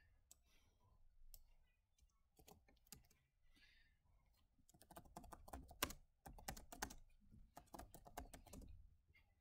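Faint computer keyboard typing: a run of quick key clicks starting about halfway in, after a few scattered clicks.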